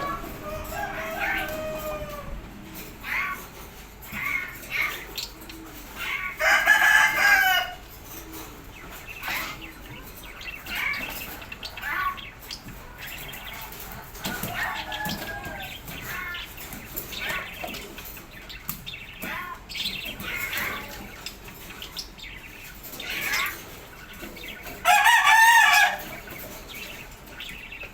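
Rooster crowing twice, about 18 seconds apart. Between the crows come shorter bird calls and chirps.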